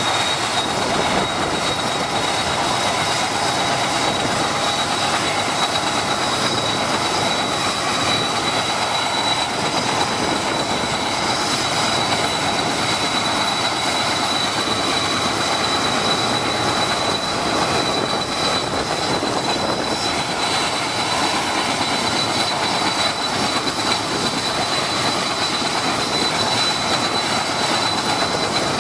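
Mi-8 helicopter running on the ground, its twin turboshaft engines and main rotor turning. The sound is a steady high turbine whine over a constant rush of engine and rotor noise.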